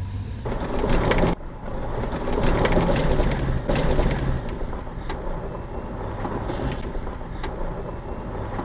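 Ford Bronco driving along a gravel road, heard from a camera on its hood: tyres crunching over gravel and wind rushing past, with a low engine hum underneath. A loud rush of noise cuts off abruptly just over a second in.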